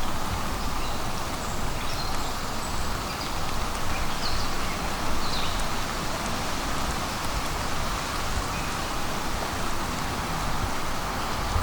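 Steady rain falling on forest foliage, with a few brief faint high chirps about midway.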